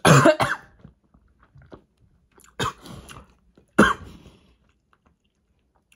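A person coughing three times over about four seconds, each cough short and sudden.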